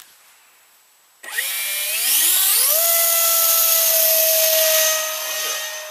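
A 70 mm ten-blade Cyclone electric ducted fan on a 6S pack spooling up for a hand launch. The whine rises in pitch from about a second in, holds steady at full throttle, and gets quieter near the end as the jet climbs away.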